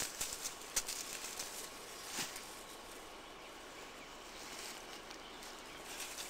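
A stick pushing through dry undergrowth and dead twigs. A few sharp twig snaps and crackles come in the first couple of seconds, then quieter rustling.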